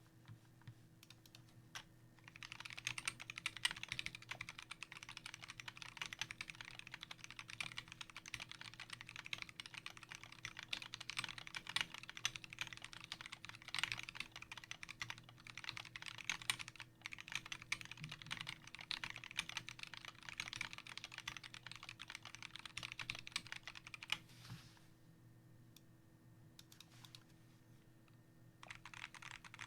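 Typing on a custom 60% mechanical keyboard with lubed and filmed Durock Koala switches, a brass plate and Tai-Hao PBT keycaps: a few scattered keystrokes, then a fast, steady run of key clicks. The clicks stop for a few seconds near the end, then start again.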